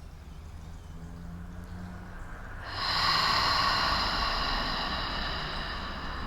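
A woman's long, audible exhalation through the mouth, a breathy rush of air that starts about a third of the way in and slowly fades over three to four seconds. It is a deliberate, slow breath out as part of a relaxation breathing exercise.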